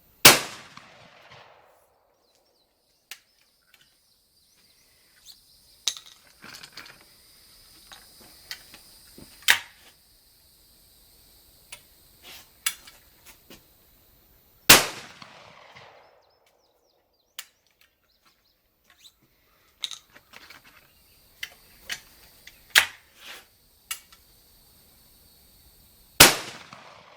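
Three shotgun shots from a Hatfield 20 gauge single-shot break-open shotgun, about fourteen and then twelve seconds apart, each with a short echoing tail. Between shots come small metallic clicks and clacks as the gun is reloaded by hand.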